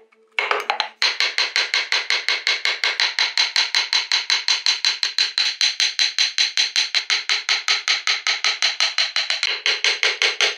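Rapid, even taps of a mallet driving a narrow carving gouge through wood, several strokes a second, cutting a groove. A brief pause and a short burst of taps come first, then a steady run.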